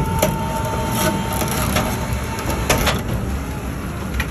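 Electric hoist raising a wire-mesh basket of boiled crawfish out of the boil pot: a thin steady motor whine that fades in the first part, with several sharp metallic knocks and clanks from the basket and hook, over a low steady rumble.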